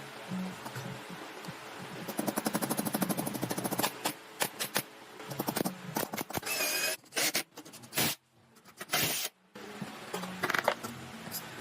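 Woodworking workshop noise: a couple of seconds of fast, even clicking, followed by scattered knocks and short scraping bursts that start and stop abruptly.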